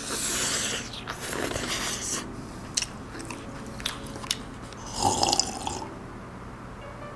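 Close-miked eating sounds from a mouthful of cold matcha soba noodles: a slurp, then chewing with a few sharp mouth clicks, and another slurp about five seconds in.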